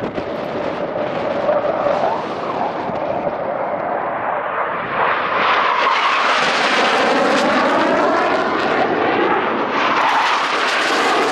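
Low-flying military aircraft passing, its engine noise building about halfway through and staying loud, with sweeping shifts in tone as it goes by.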